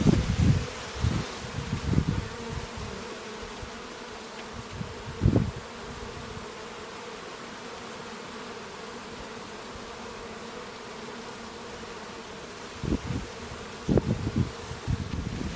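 Honeybees buzzing in a steady, continuous hum around a hive. Low gusts of wind buffet the microphone near the start, briefly about five seconds in, and again over the last few seconds.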